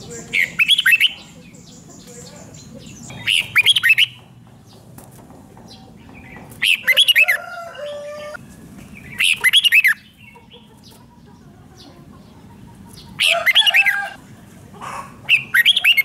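Red-whiskered bulbul singing: six short, bright, warbling phrases, each under a second long, spaced two to four seconds apart.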